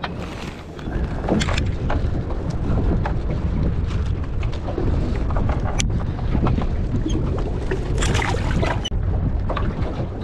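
Wind buffeting the microphone on an open boat, a steady low rumble, with a few sharp knocks and rustles of handling about a second in, near the middle and near the end.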